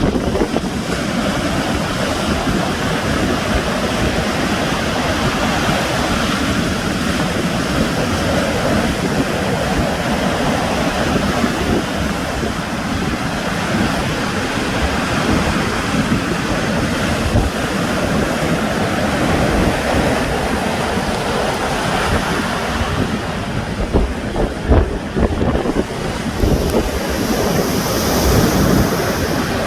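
Sea waves washing in a steady surf, with wind buffeting the microphone in low gusts. Near the end a separate high hiss joins in.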